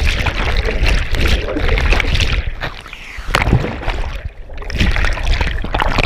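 Turbulent waterfall pool water churning around a submerged GoPro Hero4 Black in its housing: a dense, muffled rush with a heavy low rumble and scattered knocks. The rush dips briefly about three seconds in and again just after four seconds.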